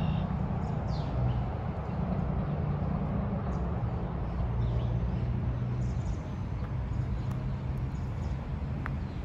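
Outdoor ambience of steady, low hum from road traffic, with a few faint, short bird chirps over it.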